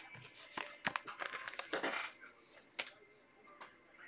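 Trading cards being put into plastic card cases: soft rustling and small plastic clicks, with one sharper click just before three seconds in.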